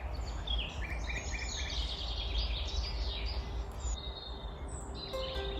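Several songbirds singing and chirping, including a quick run of four short notes about a second in, over a steady low rumble. A plucked-string tune starts near the end.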